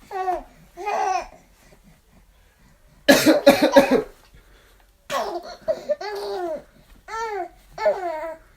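An adult man coughs loudly in a quick run of coughs about three seconds in. A baby laughs and squeals in short high-pitched bursts, twice before the coughing and several times after it.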